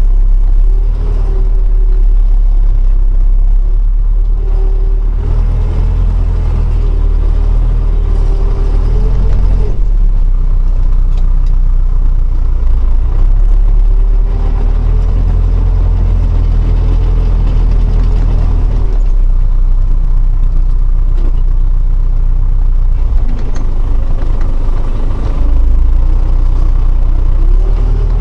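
Vehicle engine running under heavy low rumble, its pitch climbing and dropping back several times as it is worked up and eased off: rising over several seconds and falling off about ten seconds in, again near twenty seconds, and climbing once more near the end.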